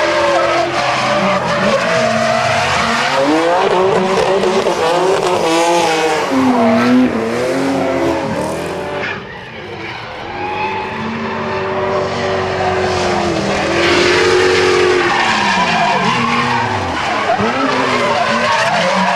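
Drift cars' engines revving hard, their pitch rising and falling again and again, with tyres squealing and skidding as the cars slide sideways. The sound dips briefly about halfway through, then builds again.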